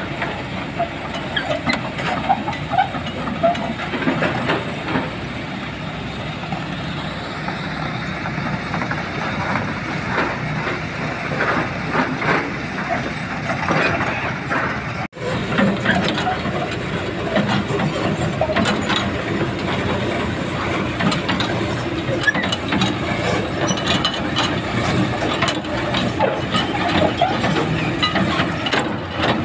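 Kobelco crawler excavator's diesel engine running steadily, with frequent knocks and clatter of the machine working in rock and gravel.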